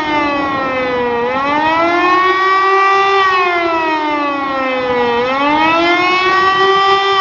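E57 electric motor siren sounding the 'Warnung' warning signal, a loud wail with rich overtones. Its pitch falls to a low about a second in, rises to a peak around three seconds, falls again to a low near five seconds, then climbs once more near the end.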